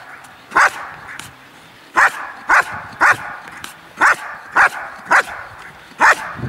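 Belgian Malinois barking at a motionless helper, the hold-and-bark of IPO protection work. About eight sharp, loud barks, mostly in runs of three about half a second apart, with short pauses between the runs.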